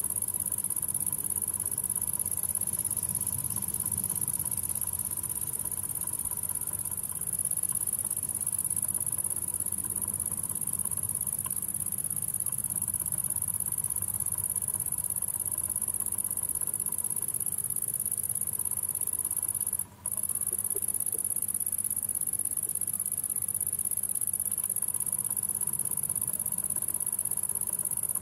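Insects stridulating in a continuous, even, high-pitched buzz, with a brief cut-out about twenty seconds in.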